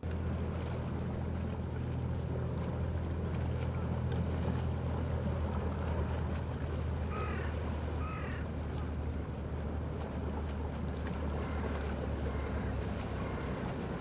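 A boat engine drones steadily, the low hum weakening a little near the end. Two short bird calls come about seven and eight seconds in.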